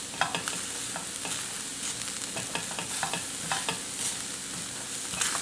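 Diced onions sizzling in a stainless steel skillet with no oil, stirred with a spatula: a steady soft hiss with scattered scrapes and light taps of the spatula against the pan.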